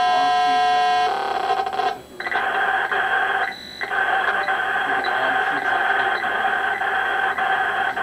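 Digital image data coming over a secure tactical FM radio. A steady chord of tones sounds for about a second, then gives way to a harsh, modem-like data screech that carries a steady tone through it. The screech drops out briefly twice, about two seconds in and again about three and a half seconds in.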